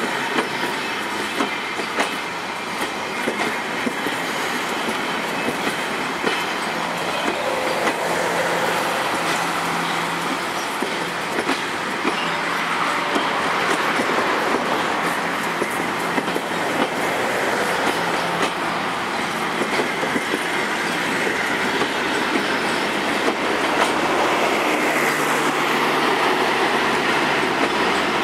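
Ferrocentral passenger coaches rolling past at speed: a steady rushing rumble of wheels on rail, with a constant irregular clatter as the wheels cross rail joints.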